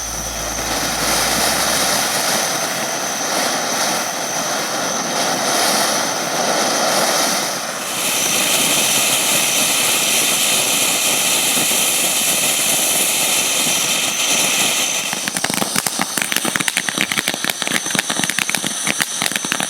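Ground fireworks fountain spraying with a steady rushing hiss; about fifteen seconds in the hiss gives way to dense, rapid crackling.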